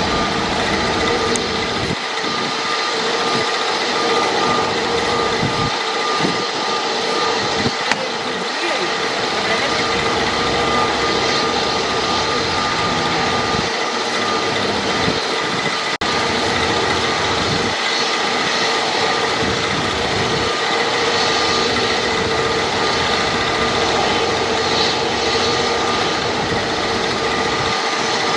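Jet airliner's engines running steadily: a continuous rush of noise with a steady high whine held throughout.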